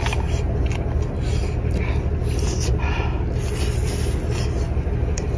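Close-up eating sounds: a few short slurps and chews as cooked shellfish is bitten and sucked out of its shell, over a steady low rumble.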